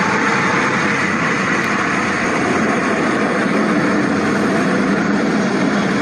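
A train running past, a loud steady rush of noise without breaks.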